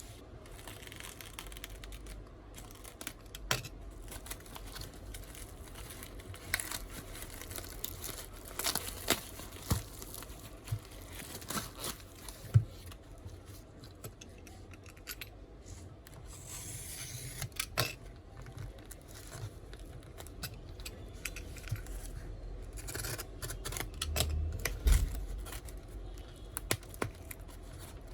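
Packaging being opened by hand: tearing and crinkling of wrapping, with scattered sharp clicks and taps as the box is handled, and a low thump near the end.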